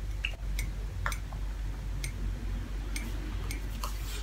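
A person drinking coffee from a mug: sips and swallows heard as short clicks at irregular intervals, over a steady low hum.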